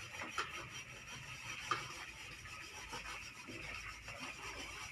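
Faint scraping with a few light clicks from cooking utensils working in bowls during food preparation.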